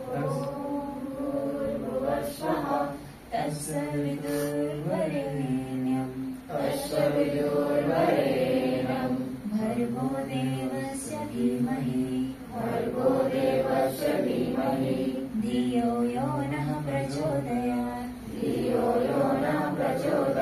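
A group of voices singing a prayer together, unaccompanied, in long held sung phrases.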